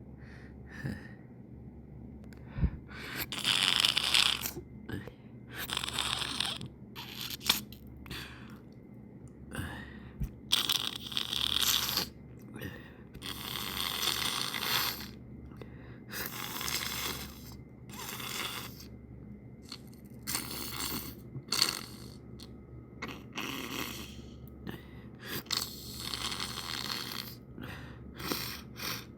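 A person sniffling and breathing hard through the nose: a run of noisy sniffs and breaths, each a second or two long and irregularly spaced, with a few sharper, louder catches among them.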